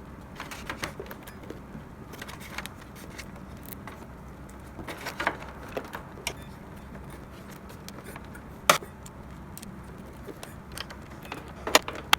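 Scattered light clicks, taps and small metallic rattles of hands working on wires and parts inside an opened espresso machine, with a sharper click about two-thirds of the way in and a couple more near the end, over a steady low hum.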